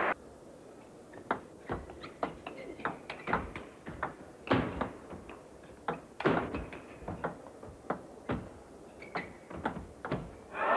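Table tennis rally: the ball clicking off the bats and the table in quick back-and-forth hits, a few shots struck much harder than the rest. Near the end the crowd noise swells up as the point ends.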